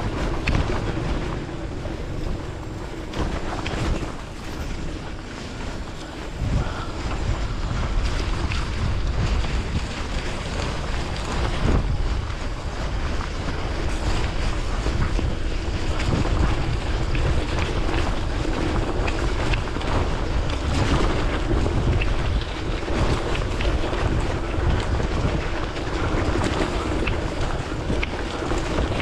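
Wind buffeting a bicycle-mounted camera's microphone during a fast ride, over the rumble and crunch of a fixed-gear bike's Panaracer GravelKing SK tyres on a wet dirt and gravel road, with scattered clicks from small stones.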